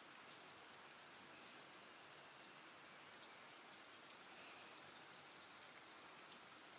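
Near silence: a faint, steady outdoor hiss with no distinct sounds.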